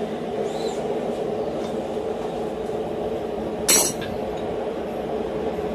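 One hand-hammer blow on a steel punch, driving it into a hot 1045 steel hammer blank to widen the eye, about two-thirds of the way in. A steady low hum runs underneath.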